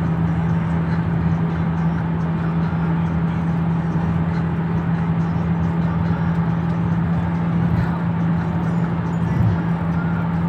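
Steady road and engine noise inside a car cruising at highway speed, with a constant low hum under the tyre rush.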